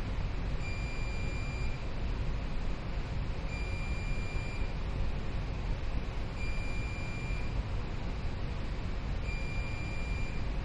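An electronic beeper on a ship's bridge console sounds four times, each a high steady beep about a second long, roughly every three seconds. Under it runs a steady low rumble of machinery noise.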